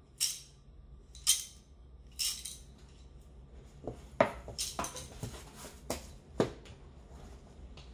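Wooden abacus beads clacking as the abacus is shaken, three rattles about a second apart, followed by several sharp knocks as it is handled and set into its box.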